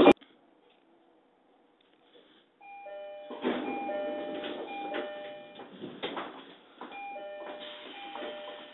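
Near silence at first, then from about three seconds in an electronic chime melody from the station's platform speakers: a run of clear, bell-like notes at several pitches.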